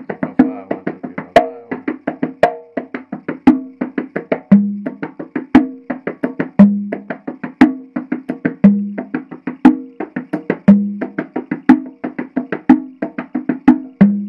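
A pair of congas played by hand in a fast, steady, repeating rhythm: ringing open tones mixed with sharper, clipped strokes, with a deeper open tone on the lower drum about every two seconds. The pattern is one that can be counted in fives or in sixes.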